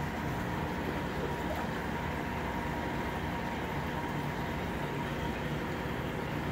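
Steady motor hum of aquarium filters running, even and unbroken, with a faint high tone.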